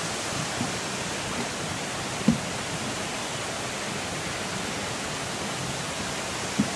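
Steady rushing of falling water from a waterfall, with two brief knocks, one about two seconds in and one near the end.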